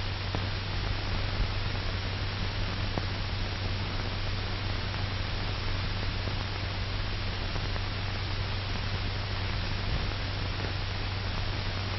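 Steady hiss of an old film soundtrack with a low steady hum under it and a few faint clicks; no music or voice.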